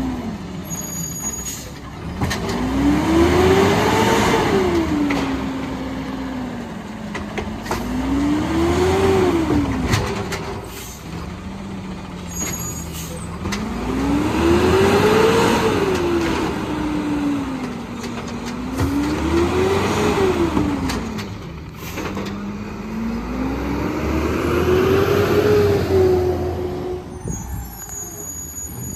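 2011 Peterbilt 320 garbage truck's CNG engine revving hard five times, each time climbing in pitch and falling back, as it powers the Amrep automated side loader's arm through lifting and dumping trash carts.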